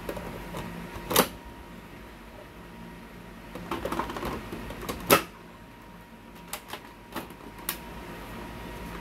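Plastic toner cartridges sliding into a Samsung colour laser printer's cartridge drawer: scraping and light clatter, with two sharp plastic clacks about a second in and near five seconds, then a few lighter clicks.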